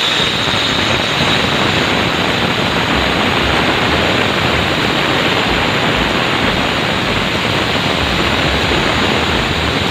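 Handheld angle grinder with a diamond blade dry-cutting through a polished granite countertop: a loud, steady grinding of blade on stone, with a high motor whine that fades within about the first second.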